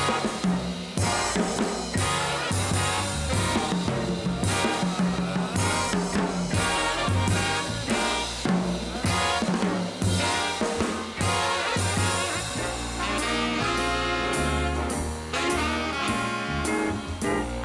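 Jazz big band playing an ensemble passage: saxophones, including baritone and bass saxophone, with trumpets and trombone over a drum kit that hits sharp accents. The horns hold longer chords about two thirds of the way through.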